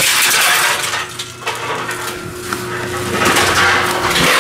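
Tomra T-53 reverse vending machine running, with a dense clattering noise from its intake and a steady hum that comes through as the noise eases about a second in.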